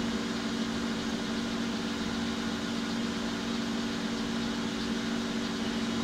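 Small metal lathe running steadily with a steady hum while a twist drill in the tailstock chuck cuts into the spinning metal bar.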